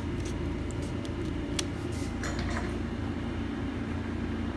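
A few light clicks and taps of hands handling the opened laptop in the first couple of seconds, over a steady low hum of room noise.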